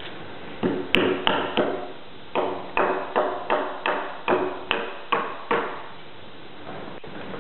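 Short hand axe chopping into the end of a log while hewing a corner notch for log building: a quick run of about a dozen sharp strikes, roughly three a second, that stops about two-thirds of the way through.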